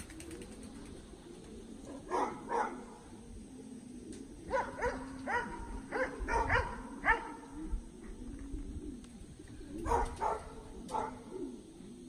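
Short animal calls in clusters of two to four: a pair about two seconds in, a run from about four and a half to seven seconds, and more near the end, over a low wavering background sound.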